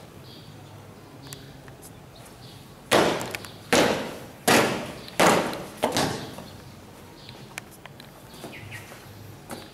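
Marching feet stamping in unison on a paved court: four loud, evenly spaced stamps about three-quarters of a second apart, then a weaker fifth. Each stamp dies away quickly.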